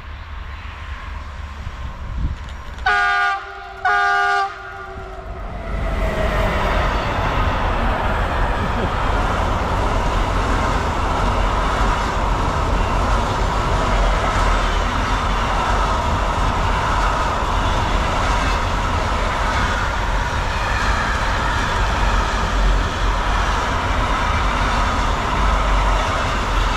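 Train sounding two short horn blasts about a second apart, then passing close by with a steady noise of wheels running on the rails that lasts for about twenty seconds.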